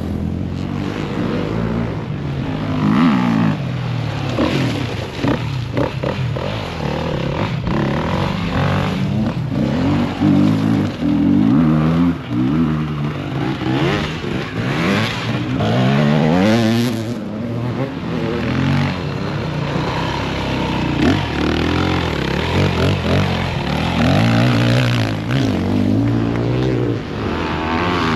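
Enduro dirt bike engines revving, their pitch rising and falling again and again as the bikes accelerate past.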